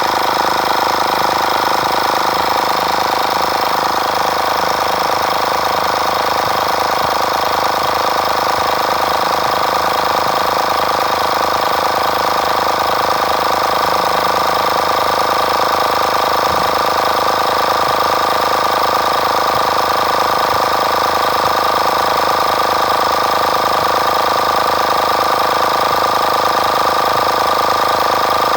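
Portable electric car air compressor running continuously as it inflates a car tyre: a steady mechanical buzzing drone with a whine that shifts slightly higher in pitch partway through.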